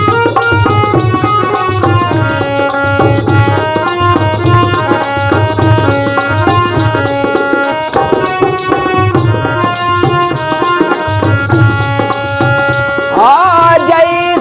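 Instrumental interlude of a Hindi devotional song: a melody in held notes over a steady drum beat and a shaker. A singing voice comes in near the end.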